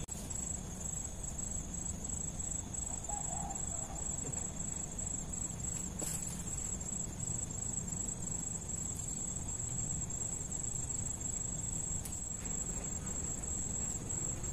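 Steady high-pitched chirring of insects, with a low steady rumble underneath.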